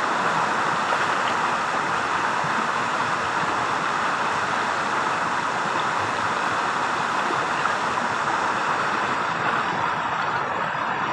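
Shallow river rapids rushing steadily over a stony bed.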